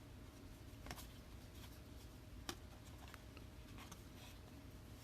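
Near silence: a low steady room hum with a few faint soft clicks of trading cards being handled, the clearest about one second and two and a half seconds in.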